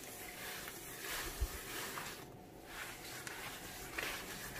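Dry microfibre cloth rubbing in circles over a quartz worktop: faint, soft swishes that come and go, with one light bump about a second and a half in.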